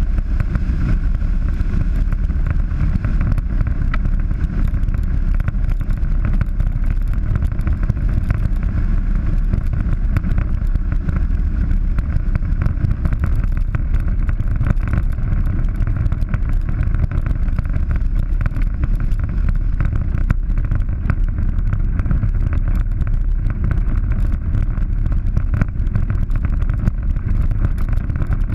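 Polaris 900 side-by-side running steadily along a dirt road, its engine drone heard from a camera mounted on the hood, mixed with wind rush and rumble from the rough track.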